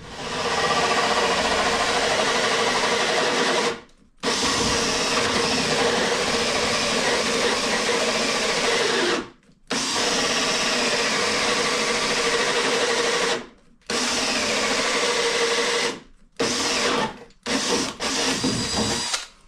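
Cordless drill running a hole saw through a wooden cabinet panel, cutting an access hole for pipes. It runs steadily in stretches of a few seconds with brief stops between them, then in shorter bursts near the end.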